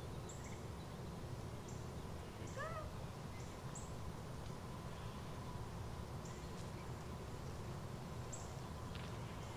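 Outdoor background with a steady low rumble and scattered short, faint high chirps. About two and a half seconds in comes one short rising-then-falling call.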